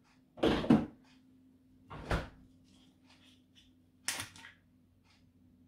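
Three short bumps and rustles of kitchen handling as vegetable oil is put onto baking parchment on a tray, the last one crisper, over a faint steady hum.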